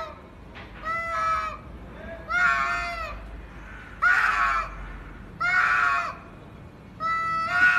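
Two domestic cats yowling at each other in a standoff: five long, drawn-out threat yowls about a second and a half apart, each held level and then dropping at the end. This is the warning call of cats squaring up to fight.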